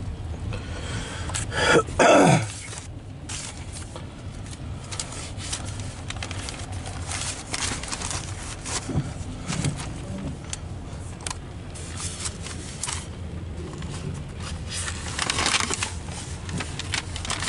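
Loaded coal hopper cars of a freight train rolling past, heard from inside a car: a steady low rumble with scattered clicks, and a short loud sound falling in pitch about two seconds in.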